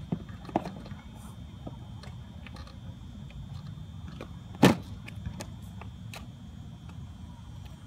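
Small clicks and knocks from the plastic body and door of a child's electric ride-on toy car as a child climbs out, then one sharp knock just past halfway as the plastic door is pushed shut. A steady low rumble and a faint steady high tone lie underneath.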